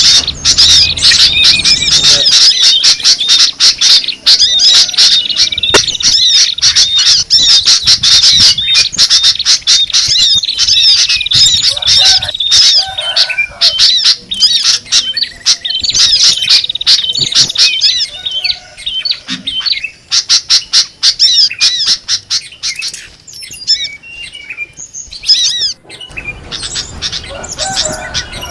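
Bird-lure recording of many small songbirds chattering and chirping together, fast high-pitched calls crowding over one another. The calls are densest for the first two-thirds and thin out near the end.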